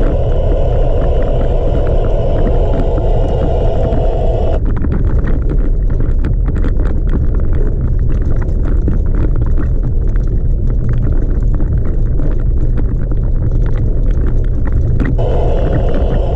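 Chevrolet Colorado ZR2 pickup driving on a gravel dirt road, heard from inside the cab: a heavy, steady rumble of tyres and suspension with scattered clicks and rattles. A hiss above the rumble cuts out about four and a half seconds in and returns shortly before the end.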